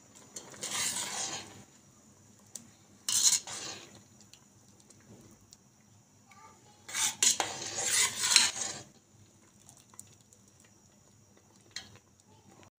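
Metal ladle stirring and scraping against a steel pot of milk vermicelli, in three spells: briefly about half a second in, again around three seconds in, and longest from about seven to nine seconds in. A single light clink comes near the end.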